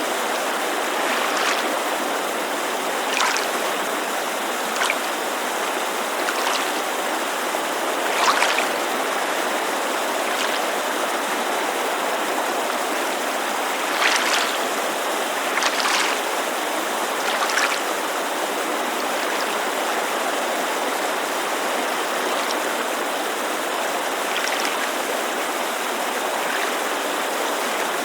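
Steady rushing of a mountain creek, with small water laps splashing against a lakeshore at irregular intervals of one to a few seconds.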